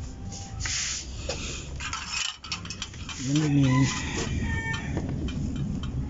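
Clicks and rustles of wires and a small switch being handled, with a chicken's call, pitched and wavering for under a second, about three seconds in.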